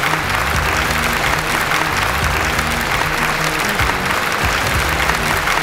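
Studio audience applauding steadily, with music playing underneath.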